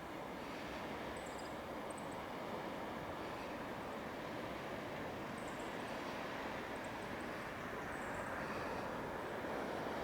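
Steady rumbling noise of the approaching Twilight Express sleeper train, slowly growing louder.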